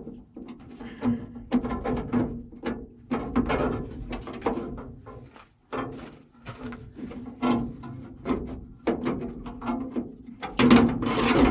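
Metal door latch assembly clanking, rattling and scraping inside the M35A2 truck's steel door as it is wiggled free, in irregular knocks with a louder burst of clatter near the end.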